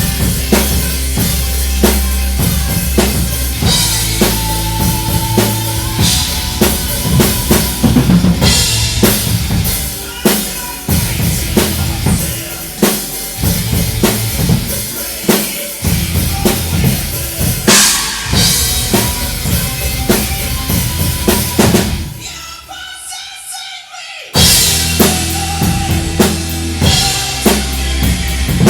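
Heavy rock music driven by a loud drum kit, with fast bass drum and snare strokes under a steady bass. About 22 seconds in the band drops to a quieter, thinner passage for roughly two seconds, then the full band with drums comes back in.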